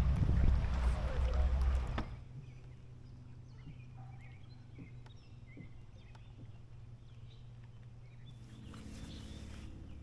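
Bass boat running across the water, with wind rumbling on the microphone. About two seconds in it cuts off abruptly to a quiet, steady low hum with faint scattered chirps.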